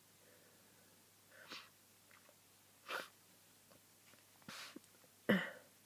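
A person with a cold sneezing: a few short, sudden sneezes with breaths between them, the loudest near the end.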